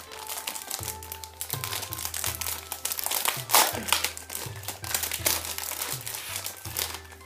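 Plastic packet of a Kracie DIY candy kit being pulled open and crinkled by hand: a dense, irregular crackling that peaks about three and a half seconds in.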